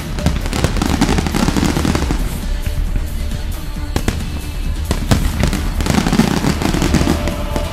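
Aerial firework shells bursting, a string of sharp bangs at irregular intervals with heavier low rumbling in places, over background music.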